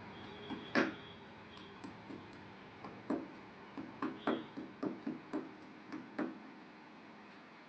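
Steady rain hiss with irregular light knocks and taps over it, such as drips landing on a hard surface, and one sharp click about a second in.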